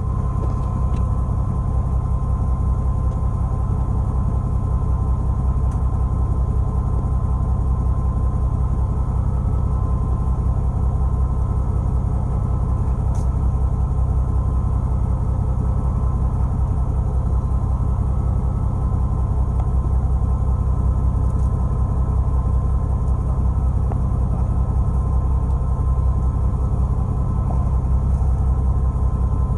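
Fishing boat's engine running steadily: an unbroken low drone with a faint steady whine above it.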